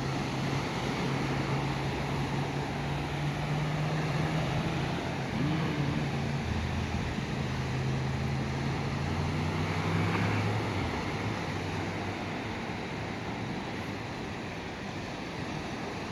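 Surf and wind noise with a low engine drone over it. The drone shifts in pitch about five seconds in and fades out about eleven seconds in.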